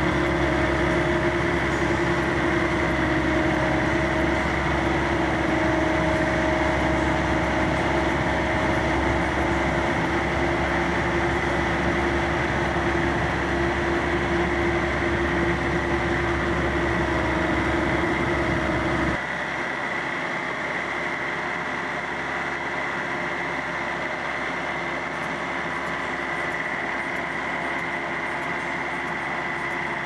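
Bobcat skid-steer loader's engine running steadily under load while it carries a heavy pallet on its forks, heard from the operator's seat. About two-thirds of the way through it drops suddenly to a quieter steady hum.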